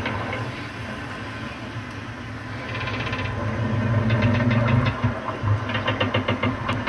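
A small motor humming steadily, with several bursts of rapid rhythmic clicking.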